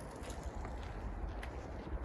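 Wind buffeting the microphone with a steady low rumble, and faint footsteps on a walking path.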